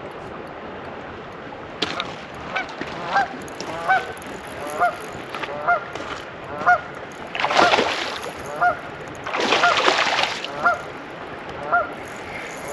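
Geese honking over and over, short calls coming about every half second to second from about two seconds in. Twice, around the middle, a louder burst of rushing noise lasting about a second covers the calls.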